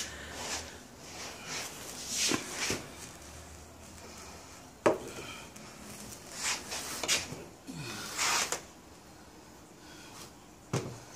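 Wooden frame parts of an antique sideboard knocking and scraping as its glued joints are pushed and fitted together: scattered knocks, the sharpest about five seconds in.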